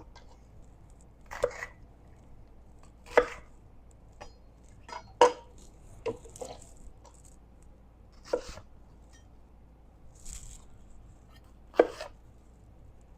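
Knife cutting an onion on a cutting board: sharp, separate knocks of the blade striking the board, irregularly spaced, about one every second or two.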